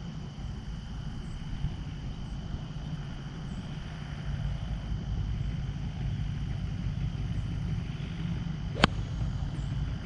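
A single sharp click of a golf club, a pitching wedge, striking the ball about nine seconds in: a full, hard swing. Under it runs a steady low background rumble.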